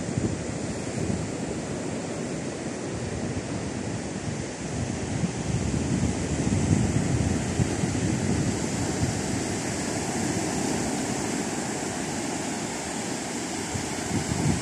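Ocean surf breaking on a sandy beach, a steady wash of noise, with wind buffeting the microphone in a low, fluctuating rumble.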